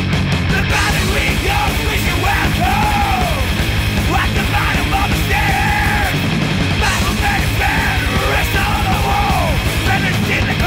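Thrash metal song at full tilt: distorted guitars over rapid, even bass-drum pulses, with yelled vocals.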